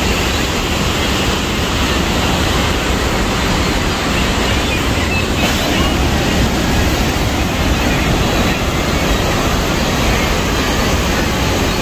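Steady, loud rush of Niagara's American and Bridal Veil Falls pouring onto the rocks close by, an even wash of water noise that never lets up.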